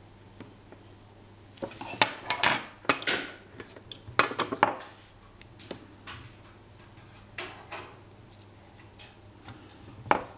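Small metal tools and parts clinking and scraping as they are handled and set down: a dense run of sharp clicks between about two and five seconds in, then a few lighter ones, and one more click near the end.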